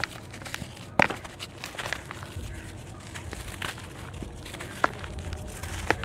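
A dry red dirt block crushed by hand over a bowl of wet red mud: gritty crumbling and crunching, with a few sharp cracks, the loudest about a second in.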